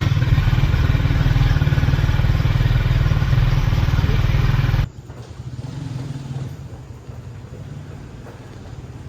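Loud, steady running of a motor vehicle's engine with a heavy low rumble, cutting off abruptly about five seconds in; a much quieter steady background noise follows.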